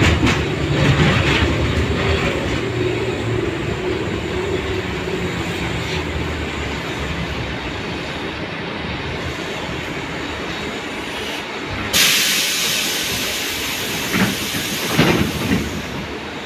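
Tram car running along the line with a steady rumble of wheels and running gear that gradually eases as it slows. About twelve seconds in a sudden loud hiss starts and fades, followed by a few knocks as it halts and its folding doors open at the stop.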